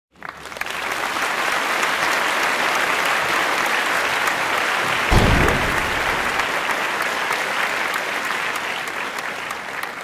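Audience applauding, a dense steady clapping that fades in over the first second. A dull low thump comes about five seconds in.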